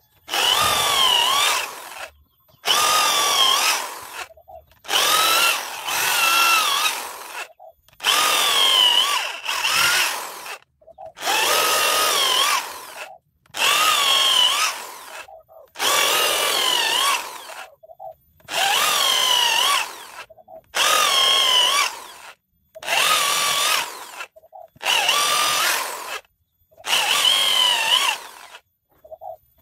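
Handheld power tool cutting into teak wood, run in about a dozen short bursts of a second or two each with brief pauses between. Its motor whine wavers in pitch as it bites.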